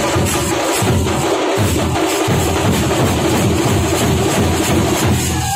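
Thampola drum ensemble: many large shoulder-slung barrel drums beaten with sticks together in a loud, dense, driving rhythm.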